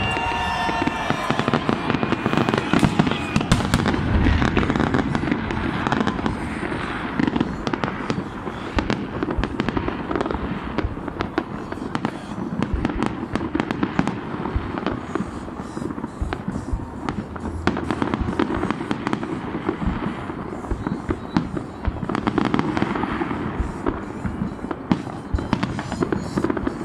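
Fireworks going off continuously: many overlapping bangs and crackles with no pause.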